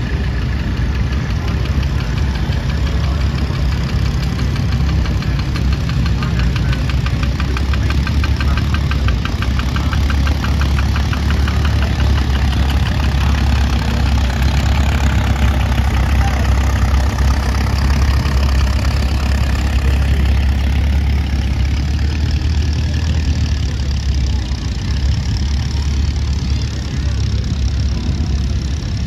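Small vintage tractor engines running at low speed as the tractors drive past one after another, a steady low engine note. A regular firing beat stands out clearly for several seconds early on.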